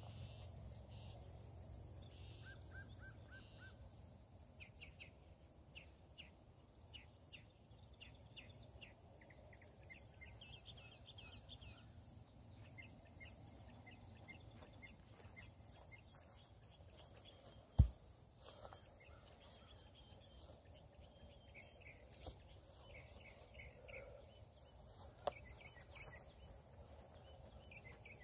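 Faint outdoor ambience of small birds chirping and singing in short phrases over a low rumble. One sharp knock stands out about two-thirds of the way through.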